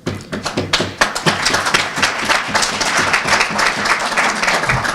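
Audience applauding: dense clapping from many hands, starting suddenly and fading near the end.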